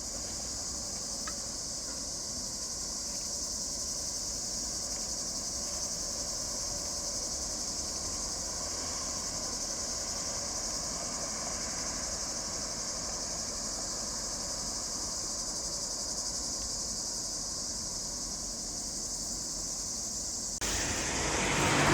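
Cicadas singing in a steady, high-pitched chorus that never lets up. Near the end a louder rushing noise joins in.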